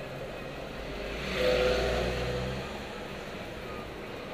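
Steady road and engine noise inside a moving Honda CR-V's cabin. About a second and a half in, a louder vehicle sound swells and fades again within about a second.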